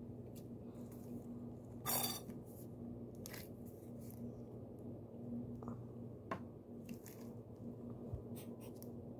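Color-changing putty being stretched and kneaded by hand, giving faint squishing, sticky crackles and clicks over a steady low hum. About two seconds in there is a brief, louder scratchy rustle.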